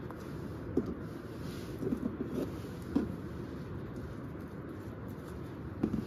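A few short, light knocks of a table knife and bread rolls against a folding camp table as cream cheese is spread, over a steady low rumbling noise.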